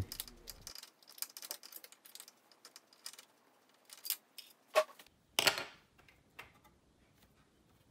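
Scattered small metallic clicks and rattles as screws are undone from the graphics card and sound card brackets of a PC case, with two louder clinks about five seconds in.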